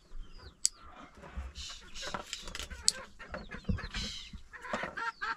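Chickens clucking repeatedly, with two sharp clicks, one about a second in and one near the three-second mark.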